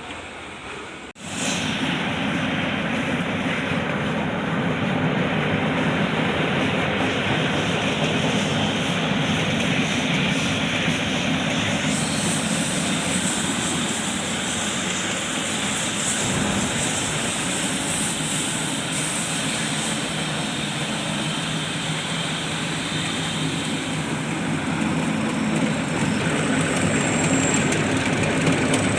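Tractor engine running steadily, a loud mechanical drone that starts abruptly about a second in; a hissy, higher layer grows louder around the middle.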